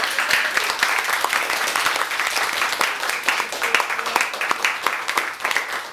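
A small audience applauding, many hands clapping at once, tapering off near the end.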